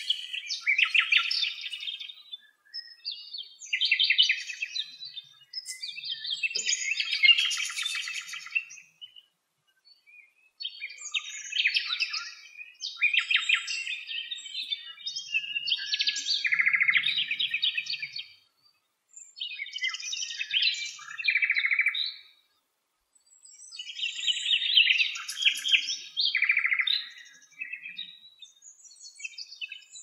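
Common nightingale singing: a series of phrases a few seconds long, each built of rapid repeated notes and trills, with short pauses between them.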